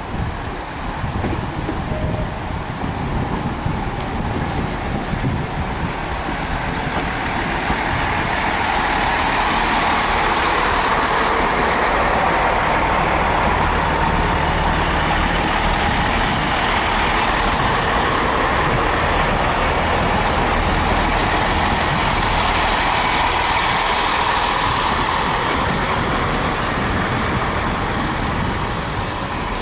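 Class 165 Turbo diesel multiple unit running slowly alongside the platform. Its underfloor diesel engines give a steady rumble mixed with wheel and rail noise. The sound builds over the first several seconds, holds level, then eases slightly near the end.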